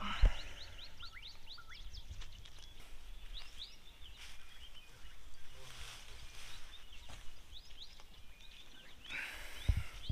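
Wild birds chirping in the African bush: many short, quick chirps overlapping throughout, with a brief rush of noise near the end.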